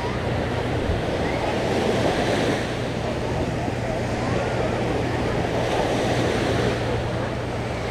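Sea surf: waves breaking and washing ashore in a steady rush, with wind on the microphone.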